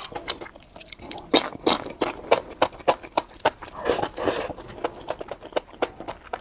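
Close-miked chewing of enoki mushrooms with garlic and onion: quick wet crunches and mouth clicks, about three a second, with a longer, noisier smack about four seconds in.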